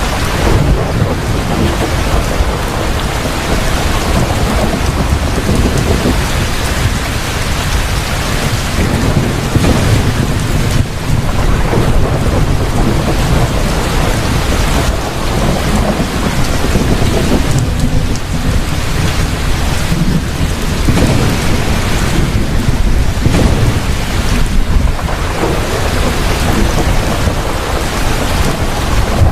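Steady heavy rain with a continuous low rumble of thunder underneath, a thunderstorm.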